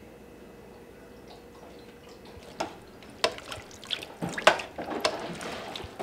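A metal spoon stirring chunky stew in a large stainless-steel stockpot: sharp clinks against the pot and wet sloshing of vegetables and liquid, starting about two and a half seconds in.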